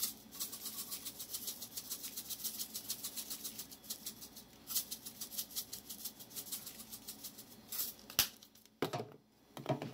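Dried crushed rosemary rattling in a spice jar as it is shaken, a fast, even rattle of about eight to ten shakes a second. A single sharp click comes near the end.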